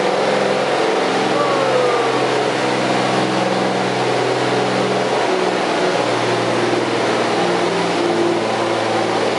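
Oliver farm tractor's engine working hard under full load as it drags a weight-transfer pulling sled. It holds a steady note that drops slightly about six seconds in.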